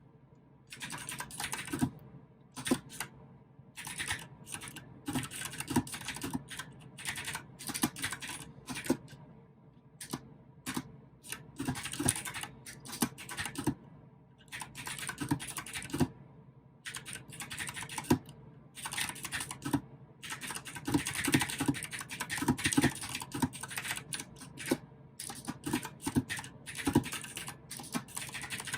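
Typing on a mechanical keyboard with clicky blue switches: quick runs of keystrokes in bursts with short pauses between them, starting about a second in.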